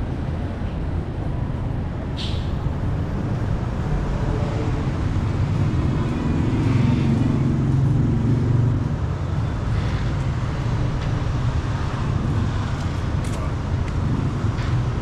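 Steady low rumble of road traffic and engines, swelling for a few seconds in the middle, with a short click or two.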